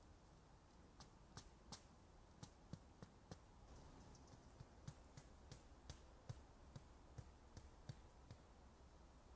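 Small hammer tapping a tent stake into the ground through snow: a run of light, sharp taps, about two a second, starting about a second in and stopping near the end.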